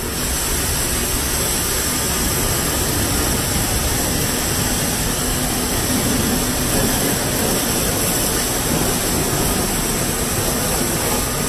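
Pressure washer spraying water over a foam-covered motorcycle: a steady hiss of the water jet.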